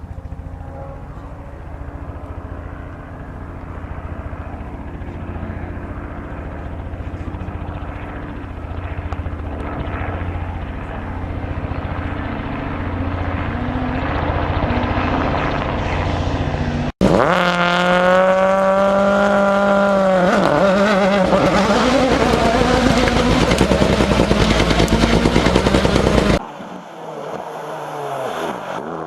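Rally car engines on a gravel special stage. An engine grows steadily louder as a car approaches. After an abrupt cut about 17 seconds in, a car passes close and loud with its engine pitch dropping, and it cuts off suddenly near the end to quieter engine sound.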